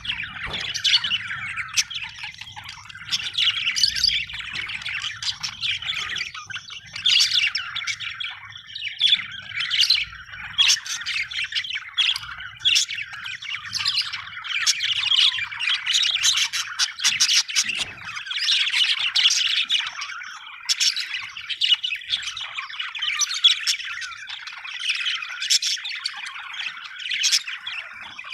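Budgerigars chirping and chattering continuously, a dense mix of warbling notes and short sharp squawks.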